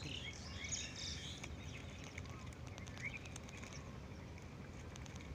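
Faint outdoor ambience: a few bird chirps and scattered small clicks over a low steady rumble.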